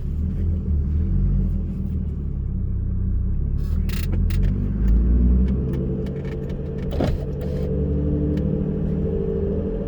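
Turbocharged 2JZ-GE straight-six of a 2003 Lexus IS300 running steadily at low revs, a low rumble, with a few short clicks about four and seven seconds in.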